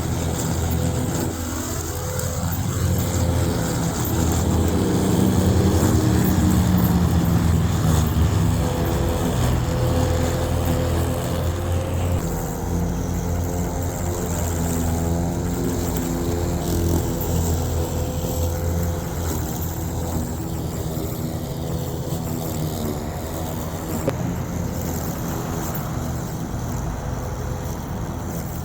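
Yeoman eM400C remote-control electric lawnmower running as it mows a steep bank: a steady motor hum with several tones whose pitch shifts now and then, over a low rumble.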